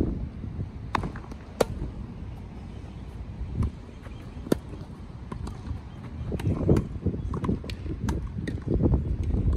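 Tennis rally: a tennis ball struck back and forth by racquets, making sharp pops at irregular intervals, with ball bounces in between.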